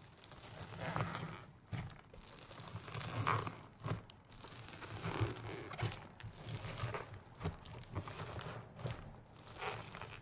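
A hand pressing and squishing a slime packed with foam beads and clay pieces, giving irregular crunching and crackling in repeated swells, with a few sharp pops.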